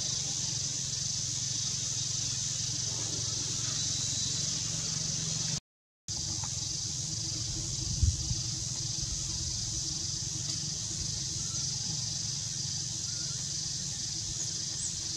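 Steady high-pitched insect drone of the forest over a low rumble. The sound cuts out completely for about half a second near six seconds in, and a short dull thump comes about eight seconds in.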